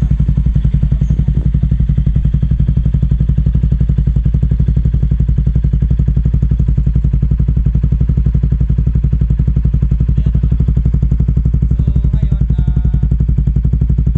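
Bajaj Pulsar NS200's single-cylinder engine idling steadily through an open SC Project-style muffler with its silencer insert removed, a fast, even exhaust pulse.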